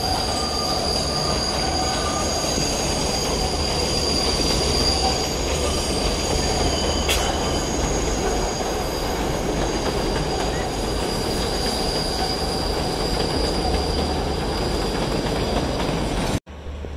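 New York City Subway 7 train of R188 cars rounding a curve on the elevated steel viaduct, its wheels squealing in steady high tones over the rumble of the cars on the track. The sound cuts off suddenly near the end.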